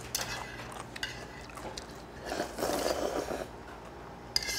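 Close-up eating sounds: chopsticks clicking against a bowl a few times, and a slurp of ramyeon noodles lasting about a second, starting a little past the middle.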